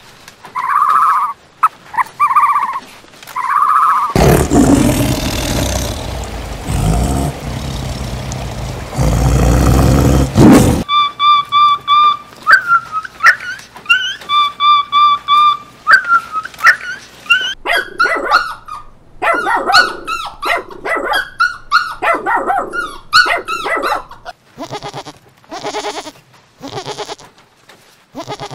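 A string of different animal calls one after another: short repeated calls, then a loud stretch of noise lasting several seconds, then rising whoops and many short calls.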